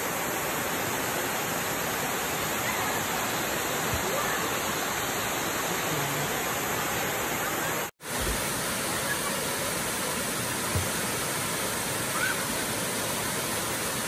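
Steady rushing of several small waterfalls spilling over a rock ledge into a pool. The sound breaks off for an instant about halfway through.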